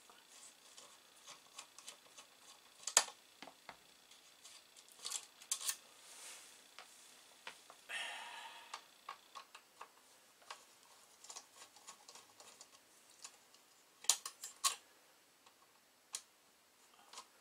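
Scattered small clicks and taps of a screwdriver working the fan's mounting screws on an Amiga 2000 power supply's metal case, as the old fan is removed. A brief scrape comes about eight seconds in, and a quick cluster of sharper clicks near the end.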